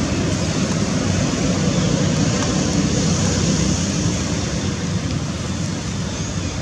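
Wind buffeting the microphone: a steady, dense rushing hiss over a fluttering low rumble, with no separate sounds standing out.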